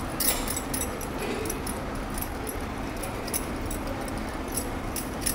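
Fingers pressing and flattening soft, sticky dough in the palm, making scattered small clicks and ticks, with light clinks of metal bangles, over a steady low background noise.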